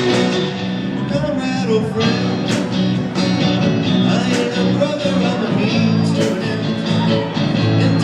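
A live rock band playing a song with guitar over a steady drum beat.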